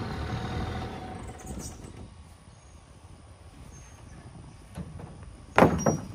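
Low outdoor background rumble, then near the end a loud sudden thump as a man steps up onto the body of a wrecked car.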